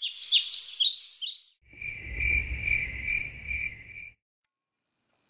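Birdsong chirps for about a second and a half, then crickets chirring in steady pulses for about two and a half seconds, ending abruptly. Together they make a day-to-night sound effect.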